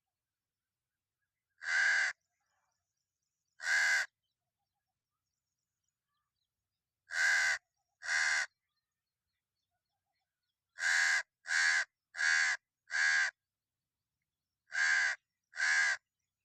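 A crow cawing: ten short, harsh caws, one, then another, then a pair, a quick run of four, and a final pair.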